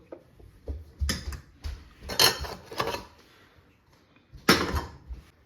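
Kitchenware being handled: a handful of sharp knocks and clinks of dishes and utensils, the loudest about two seconds in and another near the end.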